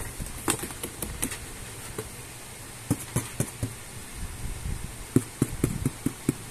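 A kitten moving around inside a cardboard box, making irregular soft thumps and taps against the cardboard in three short flurries.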